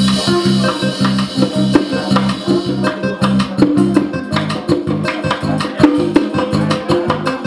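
Uzbek doira frame drum beaten in a fast, steady rhythm together with a plucked string instrument, live instrumental music without singing.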